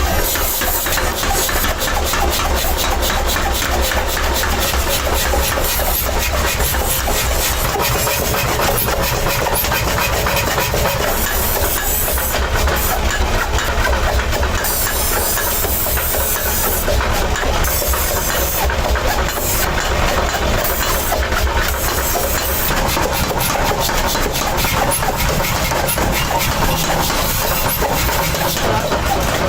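Workshop machinery running steadily: a low hum under a loud hiss, with rapid, dense clatter throughout.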